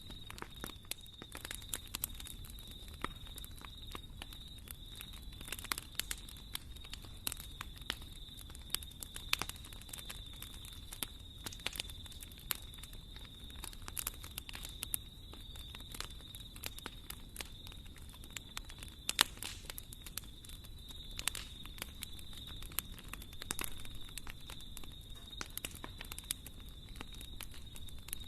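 Wood fire burning in a fireplace, crackling with irregular pops, one sharper snap about two-thirds of the way through, over a low steady rumble and a faint steady high-pitched whine.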